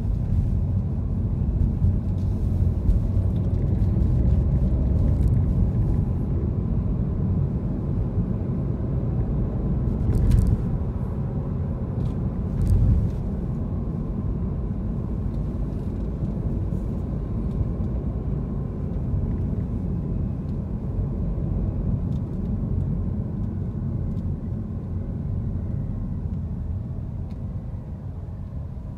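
Car in motion heard from inside the cabin: a steady low rumble of road and engine noise, with two brief thumps about ten and thirteen seconds in, growing quieter near the end.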